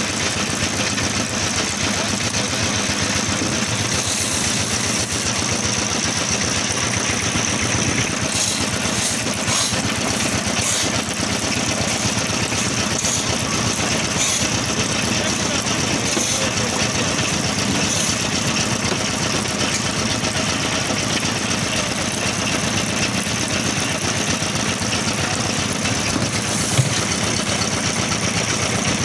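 Concrete pump's engine running steadily, with a single sharp tick near the end.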